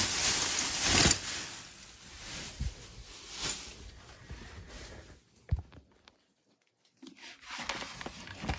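Thin plastic bag crinkling and rustling as it is handled and pushed aside, loudest in the first second, followed by a few soft knocks. After a short stretch of dead silence, a clear plastic tub of costume jewelry is grabbed and shifted, its beads and chains clicking lightly.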